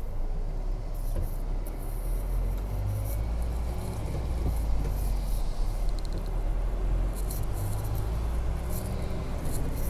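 Steady low rumble of a car's engine and tyres on a wet road, heard from inside the cabin while driving slowly, with a few short hisses near the end.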